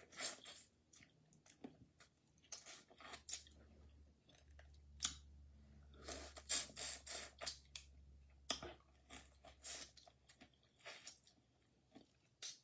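Faint, irregular crackles and clicks of someone eating boiled crawfish: shells being cracked and peeled, and chewing.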